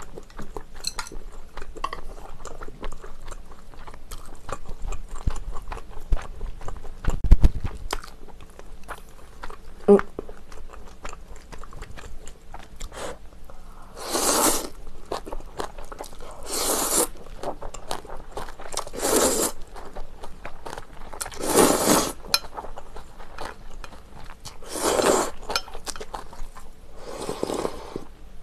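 Instant ramen noodles being chewed and then slurped, in six separate slurps over the second half, each lasting about half a second to a second. Before them come small clicks and chewing sounds, with a single low thump about seven seconds in.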